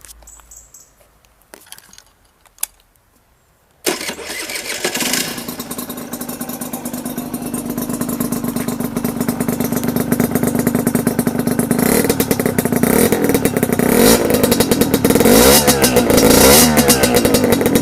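A few light clicks, then about four seconds in a Peugeot XPS motorcycle engine starts suddenly and runs, growing louder; near the end it is revved up and down a few times.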